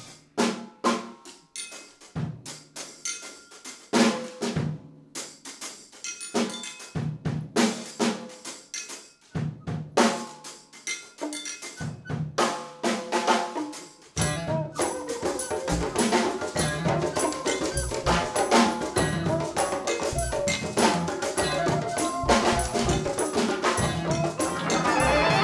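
Large improvising ensemble conducted by hand signs. First come short, sharp percussive hits with gaps between them. About fourteen seconds in, the whole group comes in together in a dense, continuous mass of sound.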